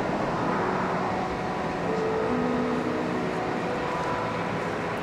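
Steady jet engine noise of a Boeing 787-9 climbing out after takeoff, slowly fading as the airliner moves away.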